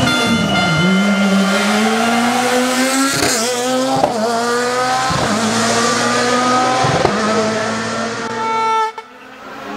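Rally car engine at full throttle, passing close and then pulling away hard through the gears: the engine note climbs and drops sharply at each upshift, about five times. It cuts off abruptly near the end.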